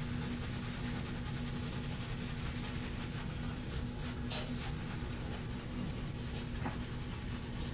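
Semogue 830 boar-bristle shaving brush scrubbing wet shaving-soap lather on the face, over a steady low background hum.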